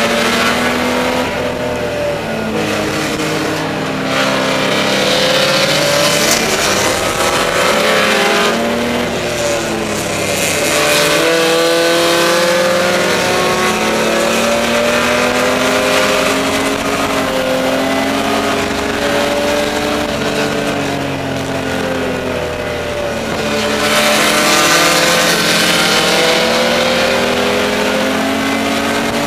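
BMW E30 race car's straight-six engine heard from inside the stripped cabin at full racing pace. It revs up and drops back several times as the car accelerates down the straights and slows for corners, with rushing wind and tyre noise mixed in.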